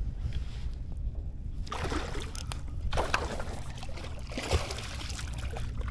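Water sloshing and splashing around a small plastic kayak's hull, in short bursts a couple of seconds in, about three seconds in and again past four seconds, over a steady low rumble.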